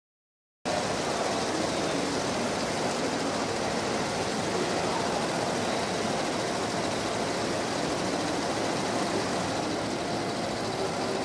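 Happy HCD2-1501-40 single-head, 15-needle embroidery machine stitching on a border frame, running steadily.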